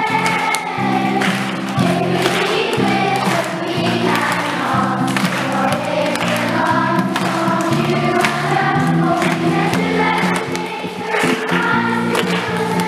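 A large group of children and adults singing a worship song together over music, with some clapping along.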